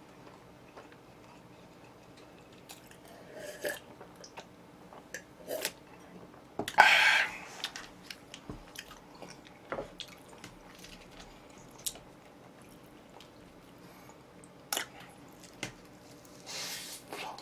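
Close-up eating sounds of oven-roasted chicken: chewing, with scattered wet smacks and small clicks, and one louder, longer noisy burst about seven seconds in.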